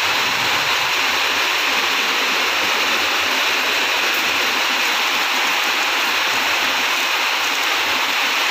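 Heavy rain pouring steadily onto a flat concrete rooftop covered in standing water.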